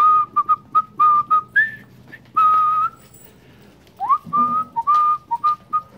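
A man whistling to call puppies to him: quick runs of short whistled notes at one steady pitch, with one longer note. After a pause of about a second, another run starts with a rising note.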